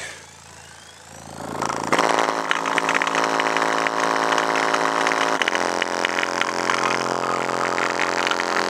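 Boston 6x9 car speaker driven flat out by a Sundown SAZ-3000D amplifier with a steady bass tone, buzzing harshly with distortion as it is pushed to destruction. A quiet low tone jumps much louder and higher about two seconds in, then shifts pitch again about halfway through.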